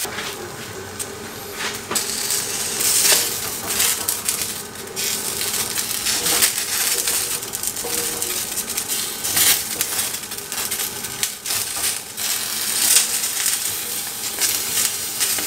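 Fresh green beans sizzling on a very hot ridged cast-iron grill pan, with repeated sharp clicks and scrapes as chopsticks turn them against the pan. The searing is what leaves the charred grill marks.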